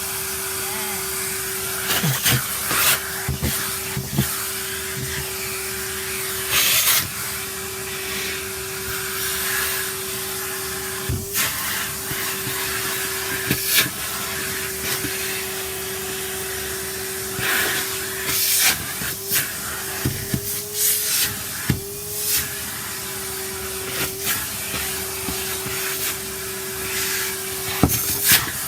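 Henry cylinder vacuum cleaner running with a steady motor hum and hiss. The hum dips and wavers now and then, and irregular knocks and short louder rushes come through it as the nozzle is worked.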